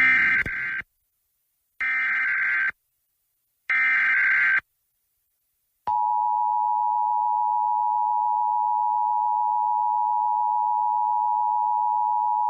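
NOAA Weather Radio Emergency Alert System SAME header: three short bursts of screeching digital data, about a second each, encoding a high wind warning. After a pause, the steady single-pitch 1050 Hz warning alarm tone starts about six seconds in.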